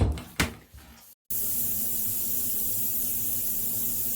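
A few quick knocks and clatters in the first second, then a steady hiss of water spraying from a handheld shower head.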